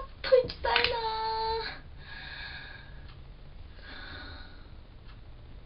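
A young woman's high voice drawn out in one long sing-song vowel for about the first second and a half, then faint breathy murmuring.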